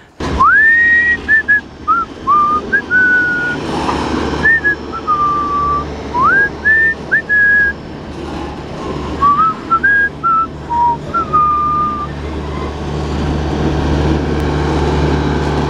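Freight train rolling past close by with a steady low rumble. For the first twelve seconds or so, high whistling tones come and go over it, several of them swooping upward and then held.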